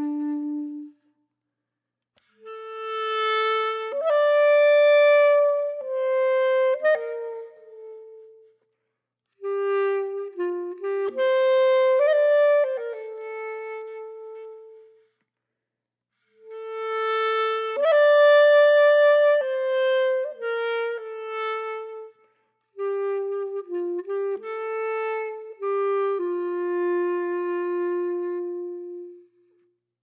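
Background music: a slow solo melody of held notes in several phrases, with short pauses between them.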